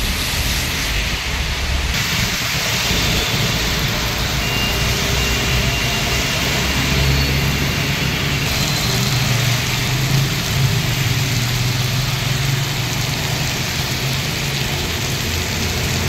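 Steady rain and road traffic on a wet road: the hiss of rain and tyres on wet tarmac, with car engines running. The sound changes abruptly about two seconds in and again about halfway.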